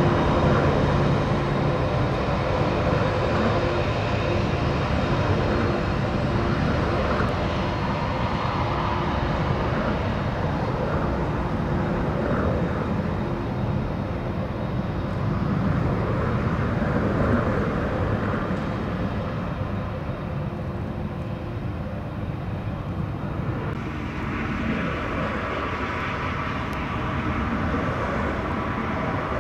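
Jet engine noise of a four-engined Boeing 747-400F freighter, slowly fading. About 24 seconds in it gives way to the engines of a Boeing 777-200.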